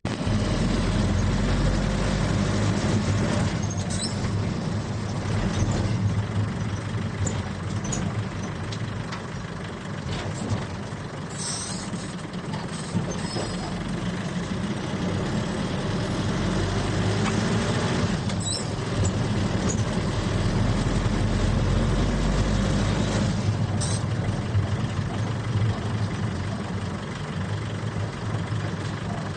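Cabin sound of a very old vehicle driving: a steady low engine drone that rises in pitch twice as it picks up speed, with sharp rattles and jolts every few seconds as it goes over speed breakers, and the gear rod rattling.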